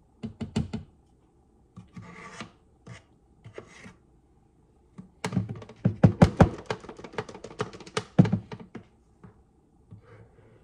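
A measuring cup scooping flour: short bursts of scraping and rustling, then a few seconds of rapid clicks and knocks against the container.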